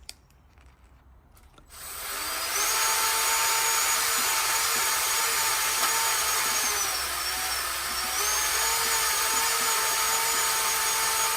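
Electric drill starting about two seconds in and running at a steady speed with a high whine. Its pitch sags for a moment near the middle, as if under load, then comes back up before it stops at the end.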